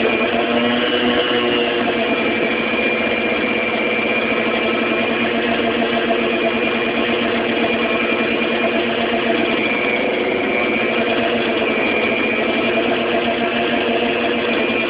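Electric stand mixer running steadily, its beater churning flour and pizza dough in a stainless steel bowl, with an even motor hum.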